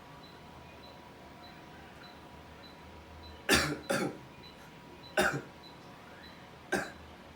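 A man coughing forcefully: two quick coughs about three and a half seconds in, then two more single coughs spaced a second or more apart. These are the deliberate coughs of the effective-cough technique, forced out to loosen and bring up phlegm.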